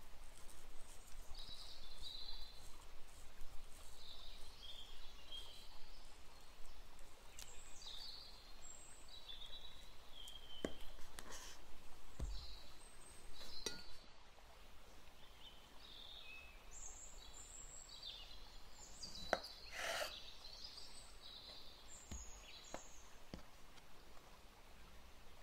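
Ceramic knife peeling kiwi skin and cutting the fruit on a wooden cutting board, with a few light knocks as knife and peeled pieces touch the board.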